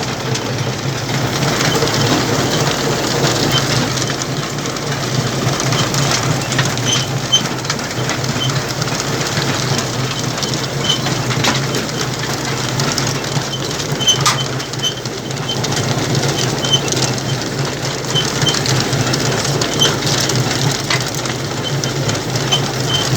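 Farm harvesting machinery running steadily with a low hum and clatter, with short high squeaks coming now and then.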